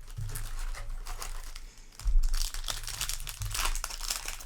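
Crinkly trading-card packaging being handled and torn open, a run of irregular crackles and rips with the loudest tear about two seconds in.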